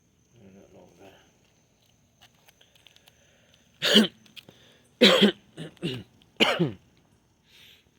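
A fit of coughing: one cough about four seconds in, then four or five more in quick succession with throat-clearing.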